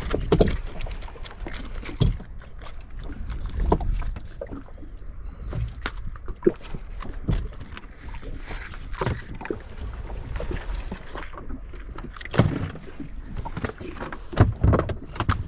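Irregular knocks and bumps in a small open fishing boat, over a low rumble of water and wind against the hull.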